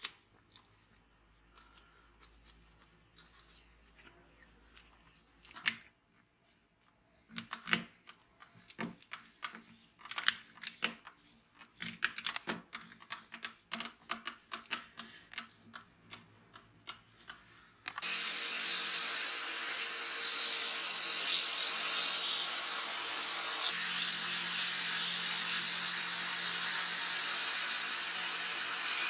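Scattered metal clicks and knocks as a steel part is fitted into an electric drill's chuck. After about 18 seconds the drill suddenly starts running steadily, spinning the part while a hand file scrapes against it, turning it like an improvised lathe.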